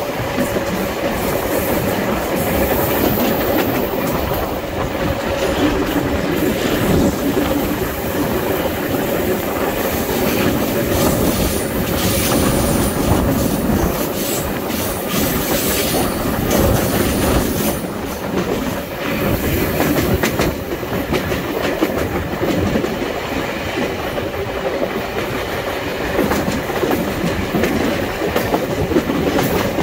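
SuperVia Série 700 electric multiple unit running at speed, heard from an open window of the car: a steady rumble of steel wheels on the rails with clicks over the rail joints and some wheel squeal on the curves.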